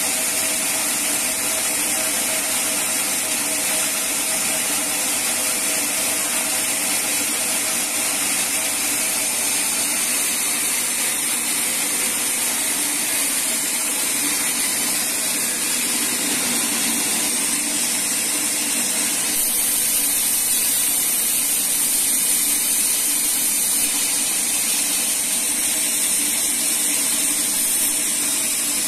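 Band sawmill running steadily: a continuous loud, high hiss with a faint hum beneath, unchanging throughout.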